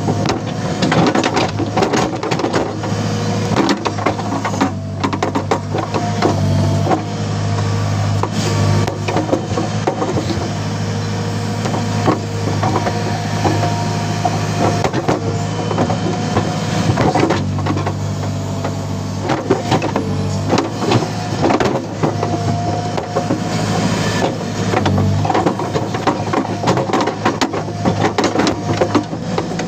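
Backhoe loader's diesel engine running steadily under digging load, with repeated clanks and scraping as the steel bucket bites into and drags through soil.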